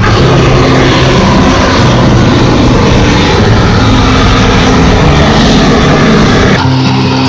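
A loud, steady rushing vehicle noise over background music with a moving bass line; the noise cuts off about six and a half seconds in.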